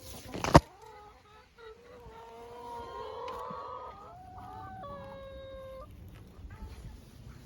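Backyard chickens calling: drawn-out, wavering calls from about two to six seconds in. A single sharp thump comes about half a second in and is the loudest sound.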